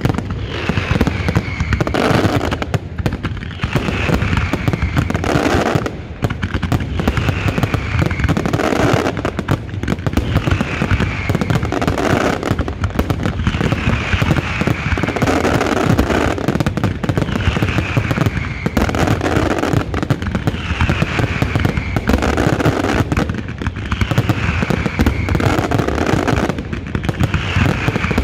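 Fireworks finale barrage: aerial shells and single shots firing and bursting continuously, a dense, unbroken run of bangs and crackling. A high falling tone recurs every two seconds or so through the barrage.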